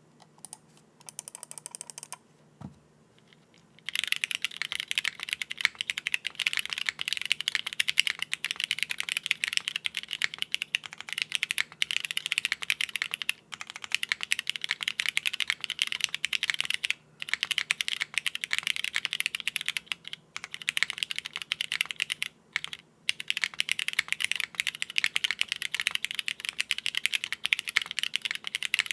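Fast, steady typing on a plateless, foamless mechanical keyboard with lubed Cherry MX Red Hyperglide linear switches, a dense run of keystroke clacks. A few light strokes come first, then a short lull, and the typing starts in earnest about four seconds in, broken by a few brief pauses.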